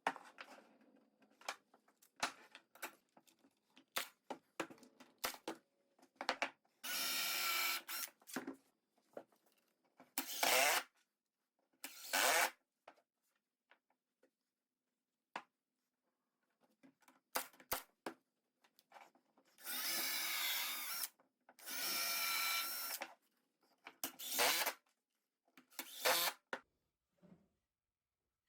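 Cordless drill/driver running screws into wood in about seven short runs, the longest about a second, the motor's pitch wavering as each screw goes in. Sharp clicks and knocks of handling the pieces fall between the runs.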